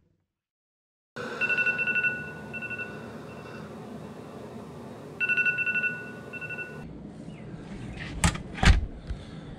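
iPhone alarm going off: a high, rapid beeping in two bursts, silenced about seven seconds in. Near the end, two sharp knocks as a door latch and door are opened.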